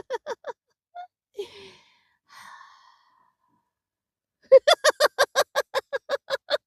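A person's breathy sighs, then from about four and a half seconds in a long run of quick voiced 'ha' pulses, about seven a second and slowly fading: deliberate laughter in a breathing exercise.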